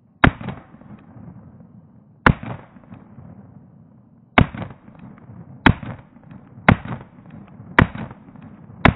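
Glock 23 pistol firing seven shots, the first three about two seconds apart and the rest about one a second, each crack trailing off in a short echo.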